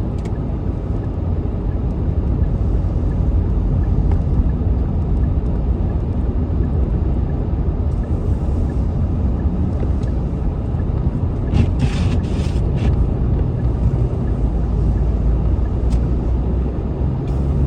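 Steady road and engine rumble inside the cabin of a car driving on a snowy road, with a short run of sharp clicks about twelve seconds in.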